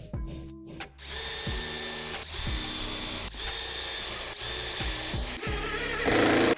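A power tool starts running about a second in and keeps going steadily with a high whine, getting louder near the end, over background music.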